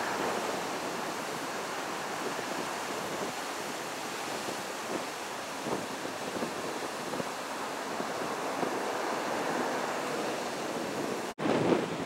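Rough surf breaking and washing over a rocky shore: a steady rush of churning white water, with wind on the microphone. Near the end the sound cuts out for an instant, then comes back louder and gustier.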